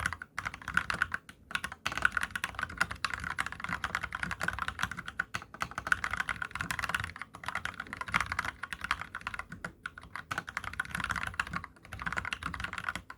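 Fast continuous typing on a COX CAREVEL87 tenkeyless mechanical keyboard with spray-lubricated Gateron Brown tactile switches and no sound-dampening foam in the case: a steady clatter of keystrokes with a few short pauses, stopping at the very end.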